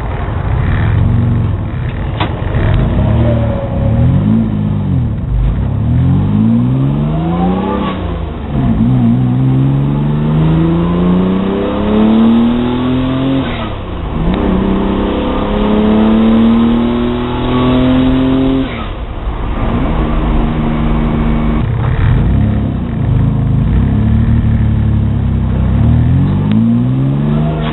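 Car engine with its camshafts advanced, run hard under load. The engine note climbs steadily, then drops sharply, about three times in the middle, like a car pulling up through the gears. Near the end the pitch is steadier.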